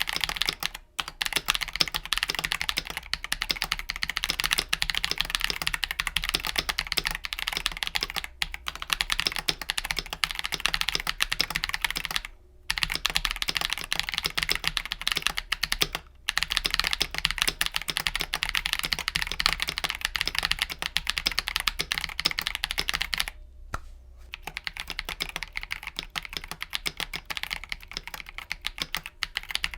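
Continuous fast typing on a KBD67 Lite R3 mechanical keyboard fitted with lubed Glorious Panda tactile switches: a dense run of keystrokes, broken by a few brief pauses.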